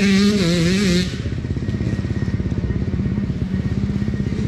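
Enduro motorcycle engine revving hard up close, its pitch rising and falling with the throttle. About a second in it drops to a duller, steadier engine note.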